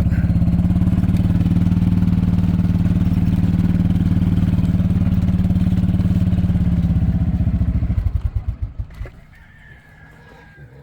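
Small farm vehicle's engine running steadily, then switched off about eight seconds in, winding down to a stop.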